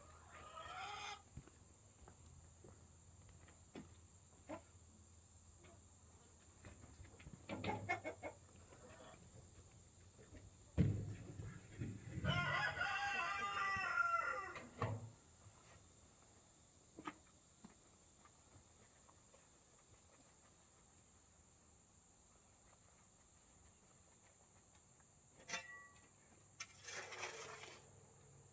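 Chickens in a backyard flock: a rooster crows once, a drawn-out call of about two and a half seconds starting about twelve seconds in, with a few shorter calls and clucks around it.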